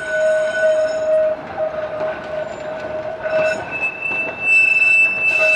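Blackpool Balloon double-deck tram No. 701 passing on its rails, the wheels squealing in steady high tones; a little past halfway the squeal jumps to a higher, louder pitch.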